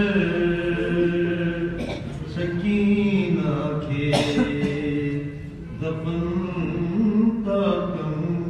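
A man's voice chanting a Sindhi salam, a Shia devotional elegy, unaccompanied, in long drawn-out notes that waver slowly in pitch.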